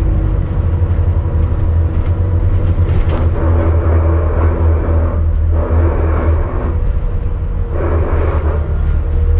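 ADL Enviro400 MMC hybrid double-decker bus on the move, heard inside: a constant low rumble with a few faint steady tones, and louder stretches of mid-range noise about three, five and a half, and eight seconds in.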